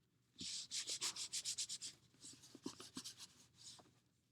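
A hand rubbing construction paper down onto glued cardboard. It makes a quick run of brisk rubbing strokes for about a second and a half, then fainter scattered rustling and handling of the paper.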